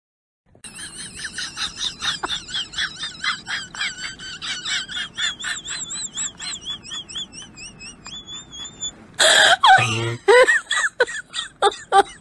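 High-pitched, rhythmic laughter, in short wavering pulses at about three or four a second. About nine seconds in, a louder wailing voice breaks in.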